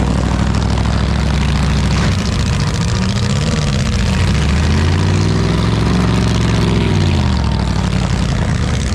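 Demolition derby car engines running loud, then revving up and down from about two seconds in, with a long rising and falling rev near the middle.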